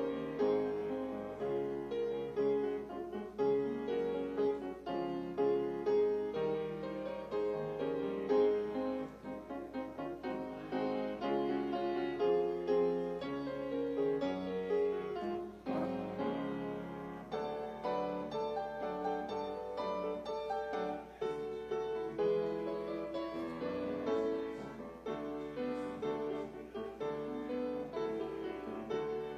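Grand piano played, a steady flow of melody notes over chords.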